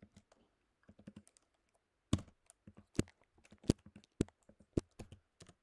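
Typing on a computer keyboard: a few light keystrokes, then from about two seconds in a run of separate, louder key presses.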